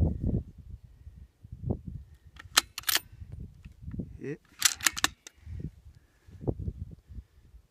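Sharp metallic clicks, two about two and a half seconds in and a quick cluster of four or five about two seconds later: the bolt of a bolt-action .308 rifle being worked after a shot, ejecting the spent case and chambering the next round. Low muffled thumps sit underneath.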